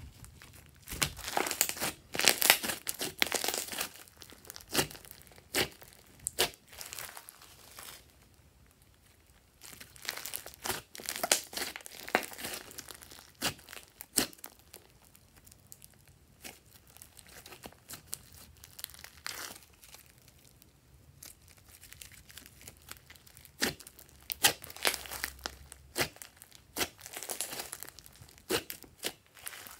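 Hands kneading, pressing and stretching a thick slime with clay mixed in, giving crackling, popping clicks. They come in bursts, loudest in the first few seconds, around the middle and near the end, with quieter stretches between.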